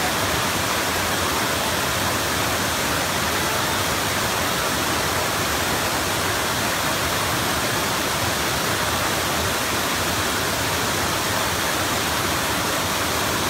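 Steady rush of water pouring over a wide, low, tiered waterfall, an even roar of falling and splashing water.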